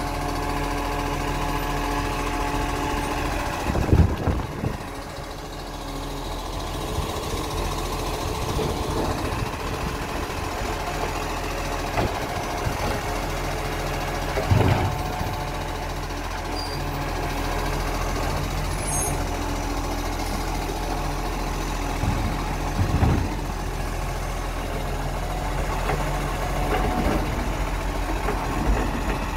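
Side-loading garbage truck's engine running steadily while its automated arm lifts and empties wheelie bins, with three loud clunks well apart.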